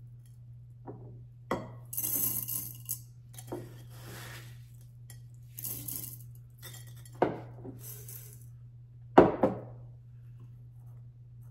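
Coloured synthetic sand poured by hand into a glass vase in several short hissing pours, with light clinks and knocks against the glass, the loudest knock about nine seconds in. A steady low hum runs underneath.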